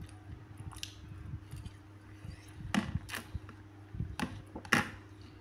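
A stainless fork tapping and clacking against a plastic bowl as it is set down, four sharp taps in the second half, the last the loudest, over soft wet chewing of fruit.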